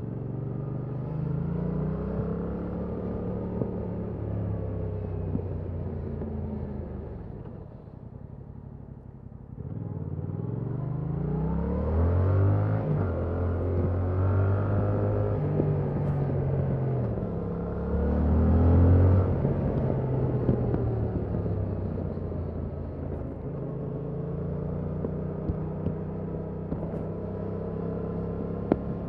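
Stock Yamaha MT-07's 689 cc parallel-twin engine under way, revs rising and dropping with gear changes. It eases off and goes quieter about a third of the way in, then pulls hard up through several gears, loudest about two-thirds in, before settling to a steadier cruise.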